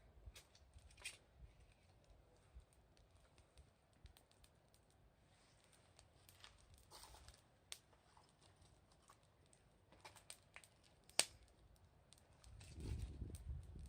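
Wood fire crackling faintly, with scattered small pops and one sharper pop about eleven seconds in. A low rumble comes in near the end.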